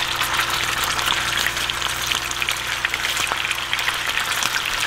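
Pieces of frog leg meat sizzling and crackling in hot oil in a frying pan as more are dropped in with tongs. It is a steady, dense crackle full of tiny pops.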